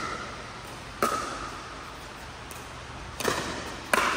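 Pickleball paddles striking a hollow plastic pickleball in a rally: three sharp pops, about a second in, then twice close together near the end. Each pop carries a brief ring and echoes in the large indoor court hall.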